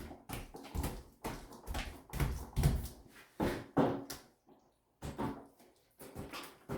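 Paint roller spreading RedGard liquid waterproofing membrane on a shower wall: a series of uneven back-and-forth rolling strokes, one or two a second, with a short pause just before halfway.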